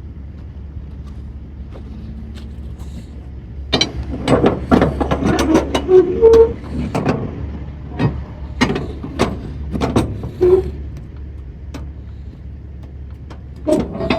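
Irregular metal clanks and clicks, some with a short ringing note, from cargo tie-down hardware being worked to secure a load, over a steady low hum. The clanking starts about four seconds in, stops near eleven seconds, and one more clank comes near the end.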